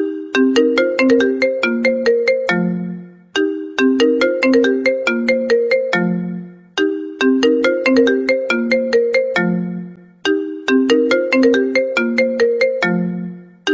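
iPhone ringtone playing on a loop: a quick run of bright, plucked-sounding notes ending on a low held note that fades away, repeated about every three and a half seconds, four times over.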